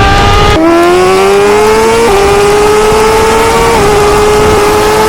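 Suzuki GSX-R1000R inline-four engine pulling hard under acceleration, its pitch climbing steadily and stepping down at three upshifts.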